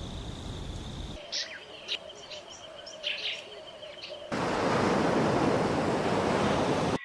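Nature ambience in three parts: a steady rushing noise with a thin high tone, then from about a second in several short bird chirps over a steady high whine, then about four seconds in a louder, even rushing noise that cuts off sharply at the end.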